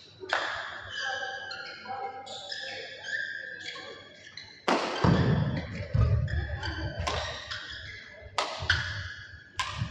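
Badminton rally: rackets strike the shuttlecock about five times at uneven intervals, with shoes squeaking on the court floor throughout. Heavy footfalls thud from about halfway through.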